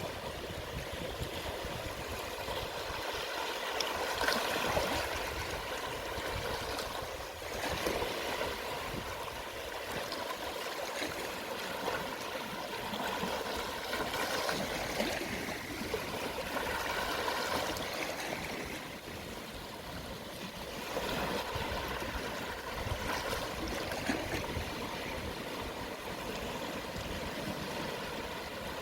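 Gentle sea waves washing onto the shore at low tide, one small wave after another, the wash swelling and easing every few seconds.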